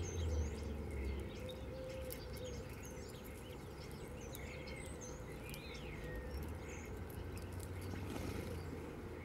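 Small songbirds calling: scattered short, high chirps and whistles, with one rising-and-falling call a little past the middle, over a low steady background rumble.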